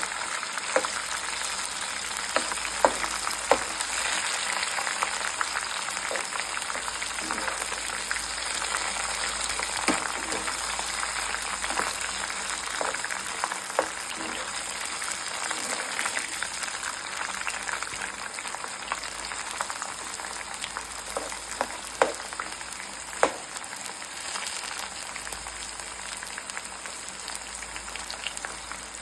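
Batter-coated corn kernels deep-frying in hot oil, a steady sizzle with a few sharp clicks scattered through it.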